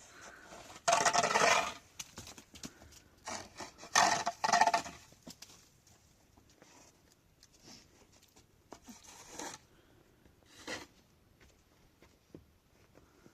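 Scraping sounds: two loud strokes, about a second in and again about four seconds in, then a few fainter scrapes.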